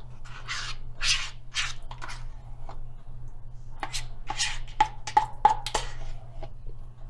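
A spoon scooping thick sour cream out of a plastic tub and scraping it off into a stainless-steel saucepan: a run of short, irregular scrapes, with a few light clinks of the spoon on the pan about five seconds in.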